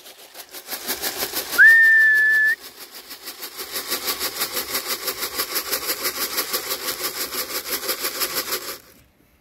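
One whistled call to the pigeons, rising then held for about a second. Then a quick, even rattle of about six shakes a second, as of grain shaken in a feed can to call racing pigeons down into the trap. The rattle stops shortly before the end.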